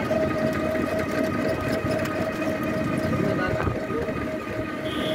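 Running noise of a moving vehicle: a steady low rumble with a continuous high whine over it.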